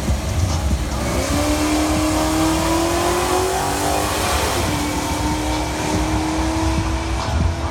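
Drag racing car launching and accelerating hard down the strip, its engine note climbing, dropping for a gear change about halfway, then climbing again.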